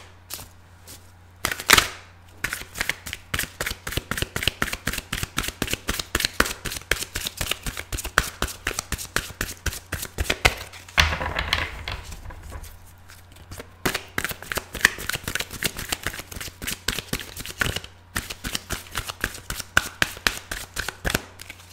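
A deck of large reading cards being shuffled by hand: a quick run of card flicks and slaps, about five a second. It thins out for a few seconds around the middle, then picks up again.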